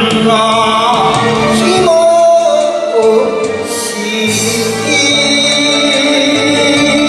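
Enka song with a karaoke-style backing track, sung by a male singer with wavering vibrato on held notes.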